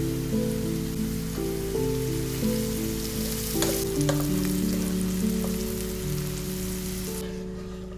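Food frying in hot oil in a pan: a steady sizzle with a couple of light clicks around the middle, cutting off suddenly near the end.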